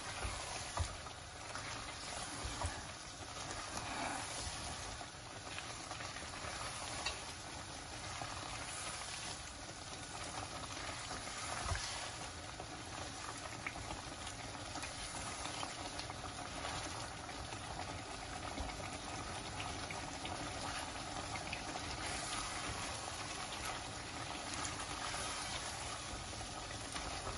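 Chicken korma masala with yogurt and onions bubbling and sizzling in a pot as it is fried down until the oil separates. A wooden spoon stirs it, with a few short knocks against the pot.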